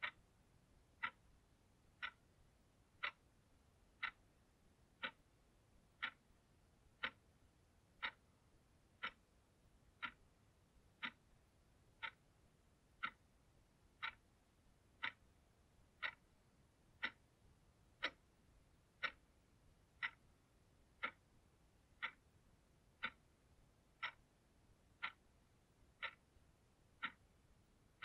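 Analog alarm clock ticking steadily, one sharp tick each second.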